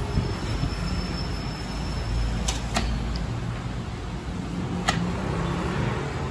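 Steady low background rumble, with a few sharp plastic clicks, two close together about midway and one more near the end, as the inkjet printer's plastic parts and ink tubing are handled.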